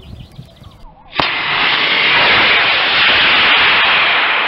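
C6-5 black-powder model rocket motor of a Crossfire rocket igniting about a second in with a sharp crack, then a loud, steady rushing hiss as the rocket lifts off.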